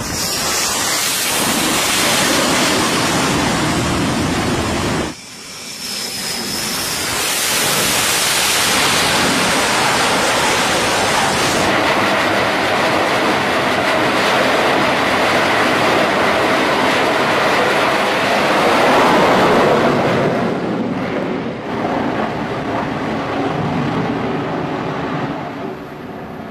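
Fighter jet engines running loudly during carrier landings and launches: a continuous jet roar that breaks off abruptly a little after five seconds and then builds again.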